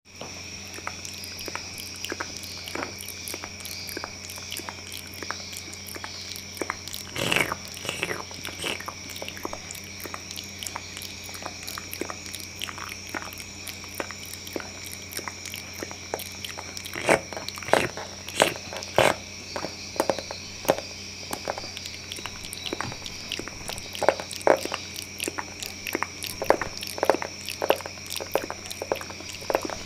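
ASMR mouth sounds made close to the microphone: a steady stream of small wet clicks and smacks, with louder clusters about a quarter, a half and three quarters of the way through.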